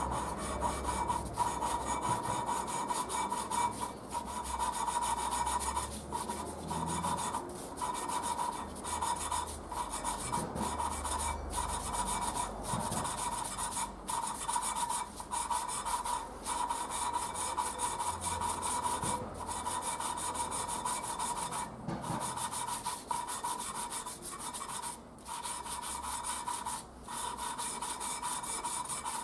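An engine valve being lapped into its seat in a Triumph Spitfire cast-iron cylinder head with fine grinding paste, the lapping stick spun back and forth between the palms. It makes a continuous gritty rasp with a steady pitch running through it. The rasp breaks off briefly about once a second as the stroke reverses.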